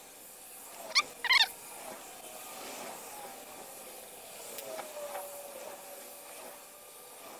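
Two short, high, wavering animal calls close together about a second in, then a faint steady hiss from a pocket lighter's flame heating heat-shrink sleeving on a wire joint.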